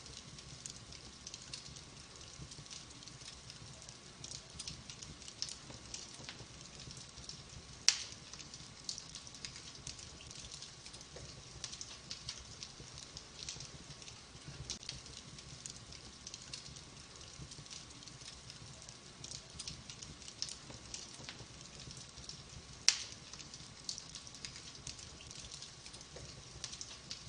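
Wood fire crackling in a fireplace: a steady run of small snaps and ticks, with two much louder pops, one about eight seconds in and another a little past twenty seconds.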